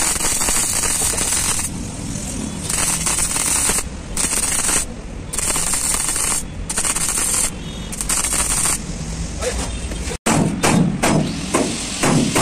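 Wire-feed (MIG) welder arc crackling and sizzling as it lays a bead along a steel seam, in several runs of a second or two with short pauses between them. About ten seconds in it cuts off abruptly.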